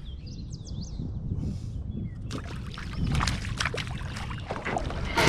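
Water splashing and knocks of handling on a kayak, thickening about two seconds in. There is a steady low rumble underneath, and a few high whistled chirps in the first second.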